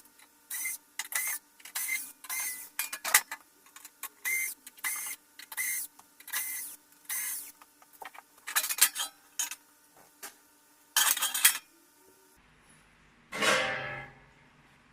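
Screws being worked out of a small inverter welder's casing with a screwdriver: a run of short, sharp scraping strokes about twice a second, with a longer scrape near the end.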